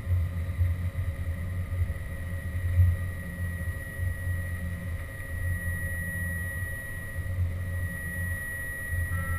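Haas VF2 CNC vertical mill running, a steady high-pitched whine over an uneven low rumble.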